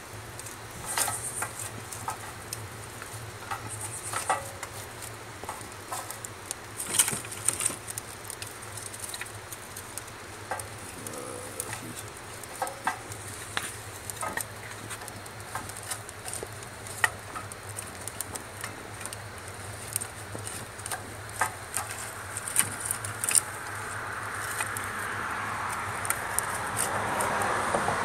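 Sticks of split wood knocking and clattering as they are loaded into a wood-burning rocket stove, with sharp irregular clicks throughout over a low steady hum. A rushing hiss builds over the last several seconds.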